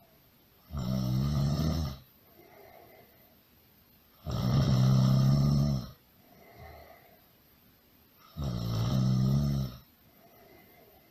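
Loud snoring: three long, pitched snores about four seconds apart, each followed by a faint, softer breath.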